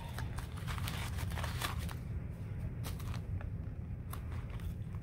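Handling noise from a small zippered heart-shaped coin purse being unzipped and opened: scattered light rustles and clicks, with the paper stuffing inside crinkling, over a low steady hum.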